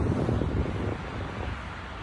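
Wind blowing on the microphone, a low uneven rush, over the wash of choppy lake water.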